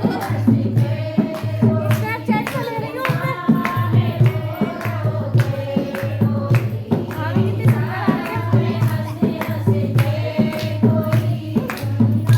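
A group of women singing a folk song together over a dholak keeping a steady, regular beat.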